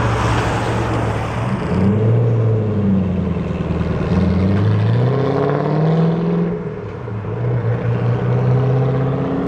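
Ford GT sports car accelerating hard away, its engine note climbing in pitch, dropping at a gear change about six and a half seconds in, then climbing again.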